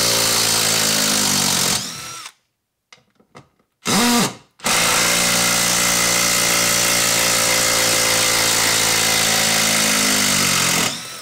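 DeWalt DCF801 12V Xtreme compact impact driver running in reverse, backing a 4-inch screw out of a wooden post. It runs, stops for about two seconds with one short burst in between, then runs steadily again until it stops just before the end.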